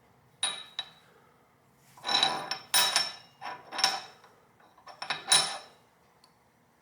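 A 60-grade hardness test file scraped across hardened A2 steel vise jaws in about five short strokes, each with a high metallic ring. The file bites, so the jaws are at least that hard.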